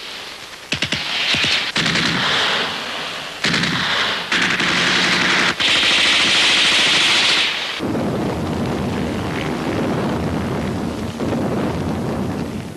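Machine-gun fire in rapid bursts with scattered single shots. About eight seconds in, the sharp crackle gives way to a deeper, duller din of battle.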